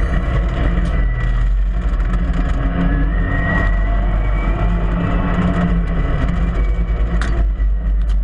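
UTV engine running steadily with a low drone, heard close up from the vehicle, with a few sharp clicks or rattles, one near the start and one about seven seconds in.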